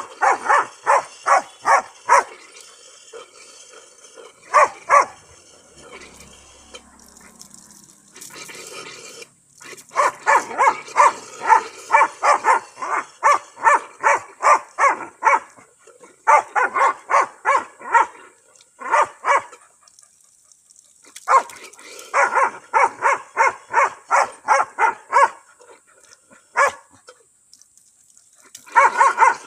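Labrador retriever giving rapid runs of short barks and yips, about three or four a second, with pauses between the runs, as it snaps at a stream of water from a tap. Water from the tap runs underneath.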